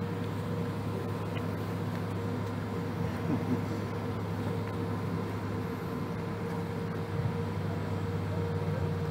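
Steady cabin drone of a Boeing 787-8 taxiing before takeoff, heard inside the cabin: a low hum with several steady tones.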